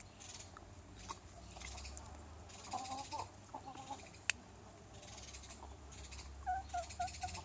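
Chickens clucking softly: a short run of low clucks about three seconds in and a quick run of four clucks near the end. A single sharp click just after four seconds.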